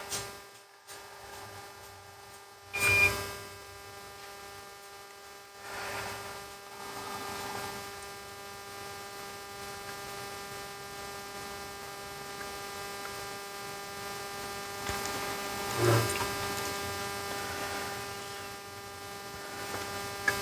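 Steady electrical hum made of several tones, with two brief knocks, about three seconds in and near sixteen seconds.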